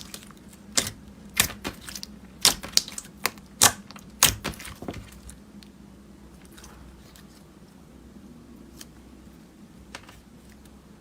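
Slime being pressed and worked by hand, giving a quick run of sharp clicks and pops over the first five seconds, then only faint, scattered ticks.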